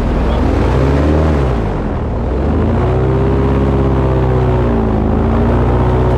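Boat motor running under way, its pitch rising then falling away about two seconds in, then holding steady with a short dip in speed near the end.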